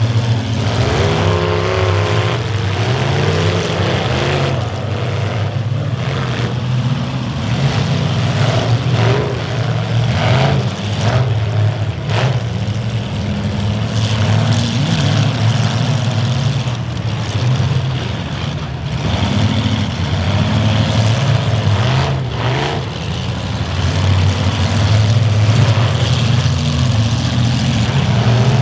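Several demolition derby cars' engines running and revving hard together, rising and falling. A few sharp metal-on-metal crashes break in as the cars ram each other, several in the first half and one more later.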